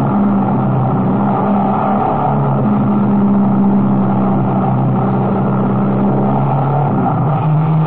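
Dodge circuit race car's engine, heard from an onboard camera inside the car, running hard at nearly constant revs through a corner. About seven seconds in, its pitch drops and settles lower.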